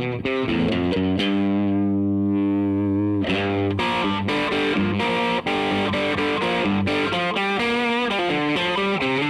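Electric guitar played through a DemonFX YJM308 overdrive pedal, giving a distorted tone, playing a lead line of quick note runs. About a second in, one note is held for about two seconds.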